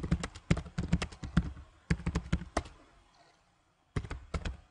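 Typing on a computer keyboard: a quick, irregular run of key clicks, a pause of about a second, then a few more keystrokes near the end.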